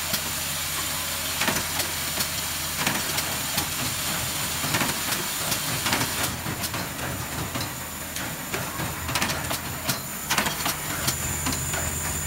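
Automatic picture-frame hanger install machine running: the vibratory bowl feeder gives a steady hum and hiss, with repeated sharp clacks as the press sets metal hangers into MDF back boards.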